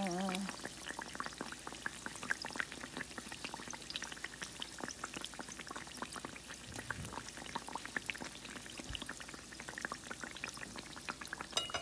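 Teler pitha, a date-jaggery and flour batter cake, deep-frying in canola oil in a stainless steel pan over very low heat: a steady crackle of many small pops from the bubbling oil. A single sharp click near the end.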